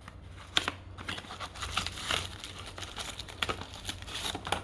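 Packaging crinkling and rustling with scattered sharp clicks as phone accessories are handled and taken out of the box.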